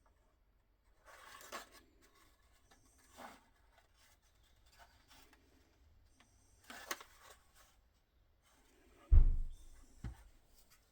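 Short scraping and rubbing strokes of hand work on the plastic centre brake light housing, a few spread apart, then a loud low thump about nine seconds in and a smaller knock a second later.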